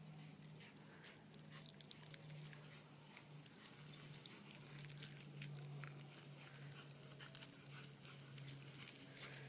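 Faint low breathing of a small dog, steady with short breaks, with light crackles as it drags itself over grass.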